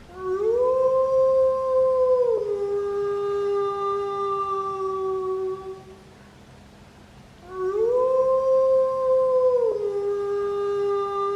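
Long howls acted out as a snore: two drawn-out howls, each gliding up to a held note, then dropping a step to a lower note held for a few more seconds; the second begins after a short pause about seven seconds in.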